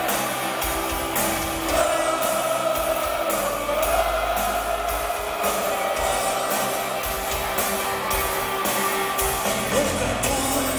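Live rock band playing, heard from the crowd: electric guitar and drums keep a steady beat, with singing.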